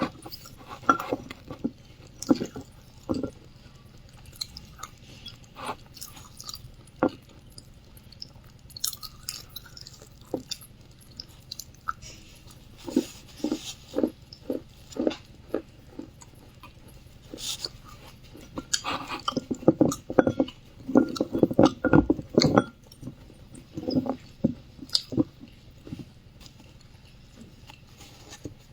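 A person biting and chewing wet clay close to the microphone: irregular crunches and clicks with short pauses between them. One run comes at about three chews a second, and the chewing is busiest and loudest about two-thirds of the way through.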